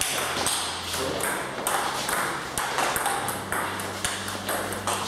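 Table tennis balls clicking on tables and bats, many quick bounces overlapping from several tables in play at once, over a steady low hum.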